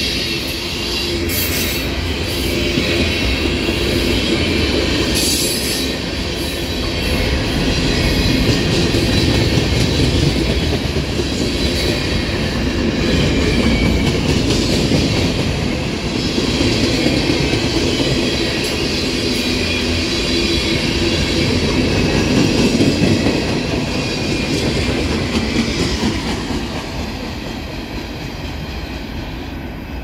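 Freight train's tank cars and an autorack rolling past close by: a steady rumble and clatter of steel wheels on the rails. It grows quieter near the end as the tail of the train goes by.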